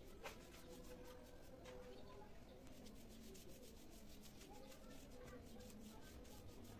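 Faint, quick, repeated rubbing strokes of a foam brush spreading a coat of finish over a rubberwood tabletop.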